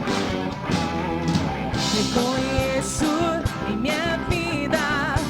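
Live band playing a Portuguese-language worship song, with drum kit and guitar and a singing voice coming in about midway.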